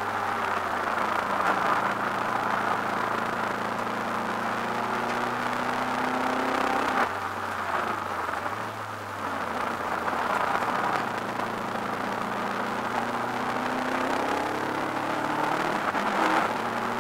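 Subaru Impreza WRX's turbocharged flat-four engine under racing load, heard from inside the cabin. The engine note climbs steadily, drops about seven seconds in, then climbs again.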